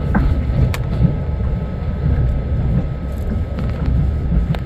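Passenger train running, a steady low rumble of the moving carriage with a few sharp clicks and knocks from the wheels and coach.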